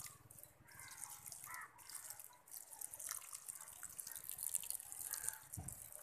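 Water poured from a watering can onto wet, freshly planted garden soil, trickling and splashing without a break.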